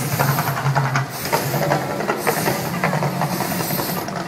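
The Mirage volcano show's gas flame jets hissing and rushing in repeated surges about a second long, over a low steady rumble.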